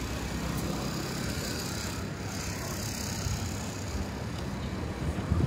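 Steady city street noise with traffic passing.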